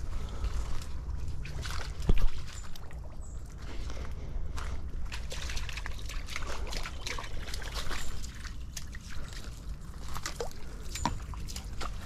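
Black Belgian Shepherd dog wading through a shallow stream, water sloshing and splashing irregularly around its legs over a trickle of running water. A sharper, louder splash or thump comes about two seconds in.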